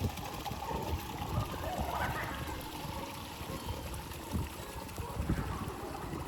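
Steady rush of flowing water at a river-fed hot spring, with faint voices in the background.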